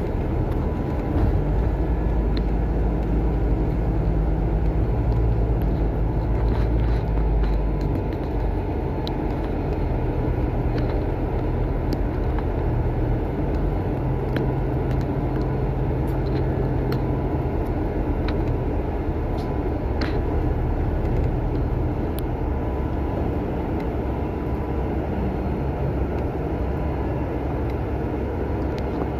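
Bus running along a road, heard from inside: a steady low engine and road rumble whose engine note drops about eight seconds in, with occasional small clicks and rattles from the cabin.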